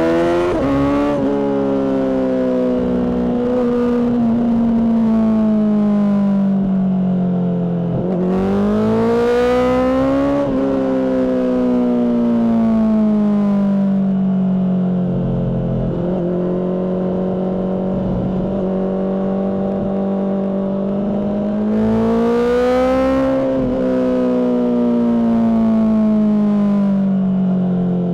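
Honda CBR600RR inline-four engine running loud through a Mivv aftermarket exhaust while riding. The revs climb twice over a couple of seconds and in between ease slowly back down.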